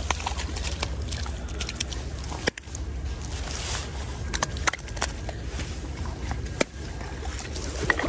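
Shallow creek water flowing and sloshing steadily, with a few sharp knocks and clicks.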